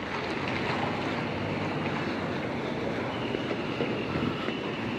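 City street traffic: a steady wash of cars driving past, engines and tyres on the road, with a faint thin high tone joining in about three seconds in.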